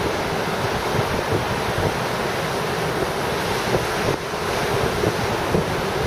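Surf washing over a rocky shore in a steady rush, with wind buffeting the microphone.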